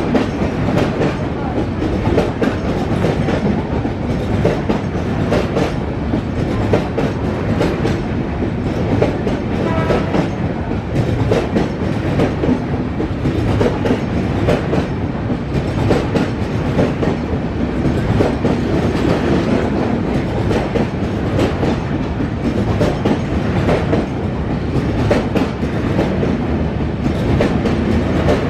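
Passenger coaches of an express train rolling past close by, wheels clattering over rail joints in a rapid, uneven clickety-clack over a steady rumble. The coaches are LHB AC coaches.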